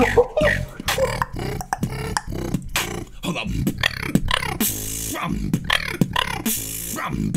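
Human beatboxing in an EDM style: fast, sharp kick and snare sounds over a deep bass line, with two longer hissing cymbal-like sounds in the second half.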